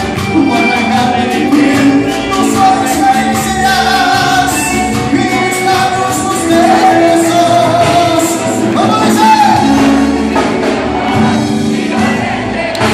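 Live band music: a singer over accordion, guitar and percussion, with a steady beat.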